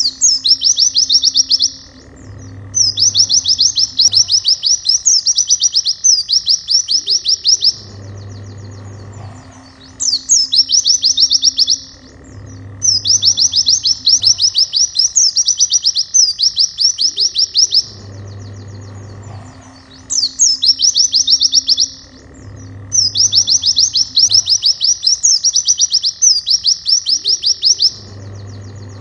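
White-eye (pleci) song: fast, high-pitched trills in bursts of one to five seconds, the same sequence coming round about every ten seconds as in a looped training track. Quieter background music runs underneath.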